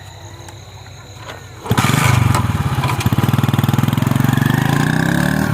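Motorcycle engine starting up suddenly about two seconds in, then running loud with a rapid, even beat.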